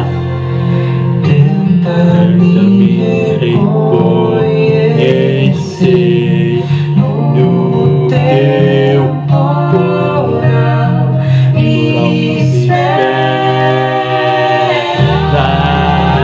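Singing with instrumental backing: a sung melody held in long notes over a steady bass and sustained chords.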